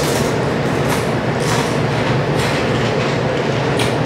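Steady low rumbling noise inside an enclosed Ferris wheel gondola, with a few short crunches of fried food being chewed close to the microphone.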